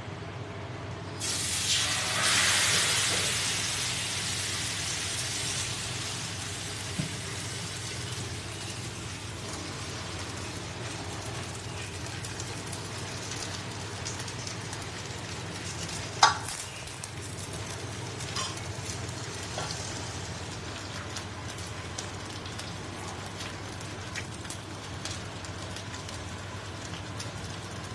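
Bánh xèo batter hits a hot oiled pan with a sudden loud sizzle about a second in. The sizzle fades over the next few seconds into a steady, quieter frying hiss. Midway there is a single sharp clack.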